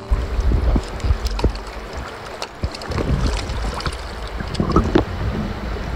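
Creek water heard through an underwater camera: a muffled low rumble of flowing water with many scattered clicks and knocks.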